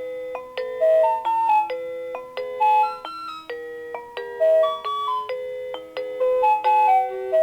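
Seiko NR435P quartz alarm clock playing one of its built-in melody alarms through its small speaker. The electronic, chime-like tune has a melody over lower accompanying notes, and each note starts sharply and fades.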